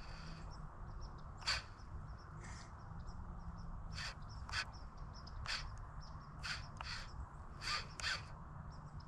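Birds calling outdoors: about nine short calls at irregular intervals, with fainter, higher chirps between them.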